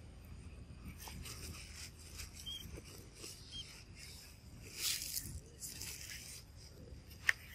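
Baby macaque scampering over grass, roots and dry leaves: soft rustling in short bursts, loudest about five seconds in, with a sharp click near the end.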